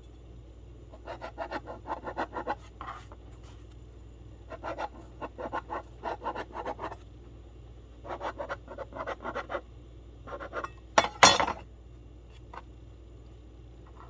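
Fingers pressing and tearing the soft centre out of a slice of white sandwich bread on a cutting board: quick scratchy rubbing in four short spells, with one sharp knock about eleven seconds in.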